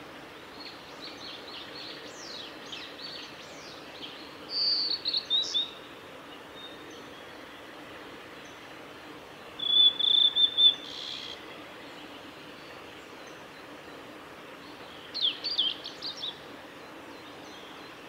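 Male blue-and-white flycatcher (ōruri) singing: three short phrases of clear, high whistled notes, several seconds apart, over a steady background hiss.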